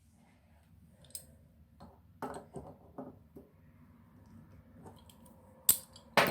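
Small clicks and light knocks of faucet handle parts being handled and fitted together on a two-handle Delta bathroom faucet, scattered and irregular, with two sharper clicks near the end.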